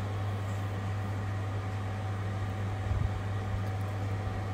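Steady low hum with an even background hiss, like a fan or air conditioner running, with one soft low bump about three seconds in.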